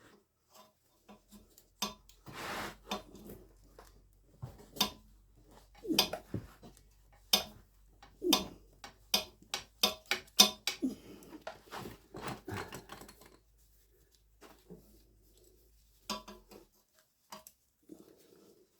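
Metal hand tool clinking, knocking and scraping on a motorcycle's oil filter while working it loose, in cramped space around the exhaust pipes. A run of sharp metallic clicks and clanks, densest through the middle, with a few more near the end.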